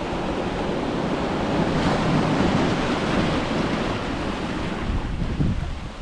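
Ocean waves breaking and washing on a beach, a steady surf noise that swells in the middle, with some wind rumble on the microphone.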